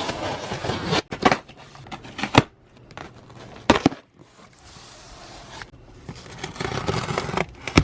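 A fabric shipment being cut open with sewing scissors: rustling and crinkling of the packaging, with a few sharp snips or clicks spread through it.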